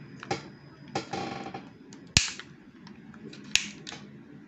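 Thin plastic shell of a Hugo Vapor Urus vape box mod being pried apart at its seam with a utility-knife blade: small clicks, a short scrape about a second in, and two sharp snaps about two and three and a half seconds in, the first the loudest.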